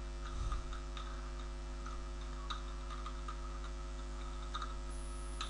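A few scattered computer-keyboard keystrokes, faint and irregular, over a steady electrical hum.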